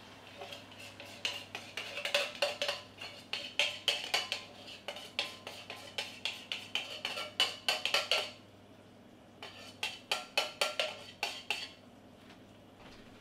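A metal spoon knocking and scraping inside a tin can of coconut milk to empty it into a pan, in quick runs of clicks with a light metallic ring. The clicks come in two runs, with a pause of about a second between them.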